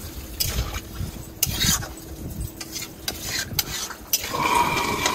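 Metal ladle stirring curry in a metal kadai, with a string of short clinks and scrapes of metal on metal. A brief held tone sounds near the end.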